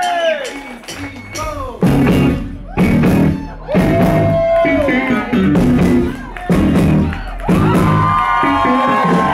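Live rhythm-and-blues band playing: electric guitar over drums and tambourine. It comes in loud about two seconds in, in punchy phrases roughly a second apart, after the crowd's whoops fade.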